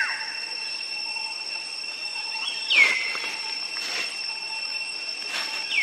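Infant macaque crying: three short, high-pitched calls, each dropping sharply in pitch and holding briefly, the middle one the loudest, over a steady high-pitched drone.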